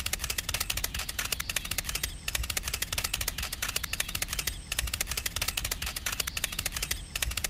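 Rapid, dense clicking rattle with a low rumble underneath, repeating as a loop with a short dip about every two and a half seconds.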